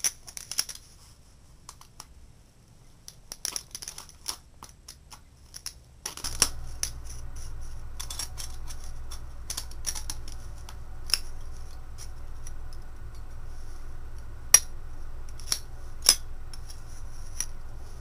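Thin aluminum soda-can pieces clicking and crinkling under the fingers as a can bottom is pressed and re-stretched so the two stove halves will fit together. The metallic clicks come irregularly, with two louder ones near the end. A steady low hum sets in about six seconds in.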